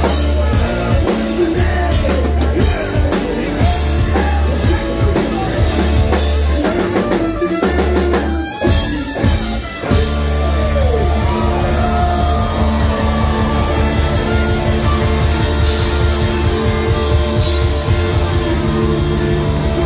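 Ska-punk band playing live: drum kit, electric guitars, bass, and a trumpet and trombone horn section. The band plays loud and full, with a short break a little before halfway through before it comes back in.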